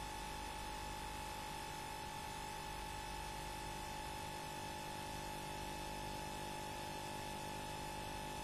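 Faint, steady hiss and hum of VHS tape playback, with a thin steady tone held throughout.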